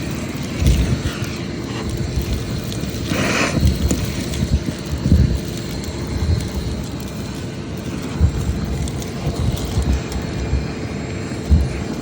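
Vacuum running steadily while it sucks up dryer lint, with a few low thumps and a brief rushing hiss about three seconds in.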